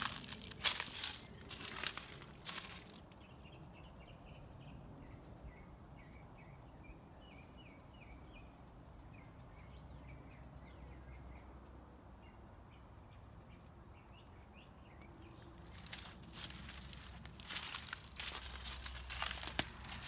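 Footsteps crunching through dry fallen leaves on grass, during the first few seconds and again from about four seconds before the end. In the quieter stretch between, small birds chirp in the background.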